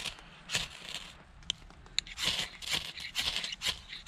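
Repeated short, sharp scraping strokes, about two a second with a brief pause early on, made while lighting a fire on fatwood shavings.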